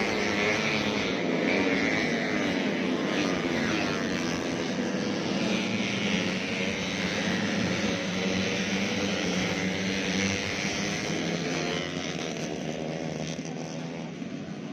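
Several four-stroke 130cc underbone race motorcycles running hard together, their engine notes overlapping and rising and falling as they rev and shift, easing slightly near the end.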